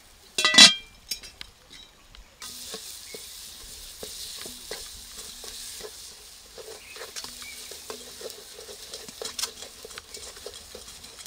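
A cast-iron pot lid clanks once against the pot about half a second in. Then a wooden spoon stirs maize meal for slap pap in the hot cast-iron pot: repeated short scrapes and knocks over a steady steamy hiss.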